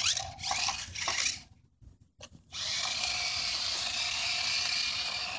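Small electric motor of a Hot Wheels High Jump Stunt Truck R/C toy running as it is driven over dirt: a few short bursts, a brief silence about two seconds in, then a steady whine.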